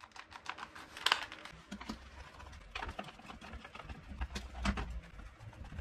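Clicks and knocks of a cordless drill being handled on a wooden work surface, the loudest knock about a second in.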